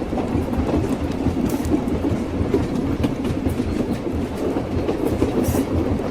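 Train wheels clattering along the rails: a steady low rumble with irregular clacks over the rail joints, and two brief hisses, one about a second and a half in and one near the end.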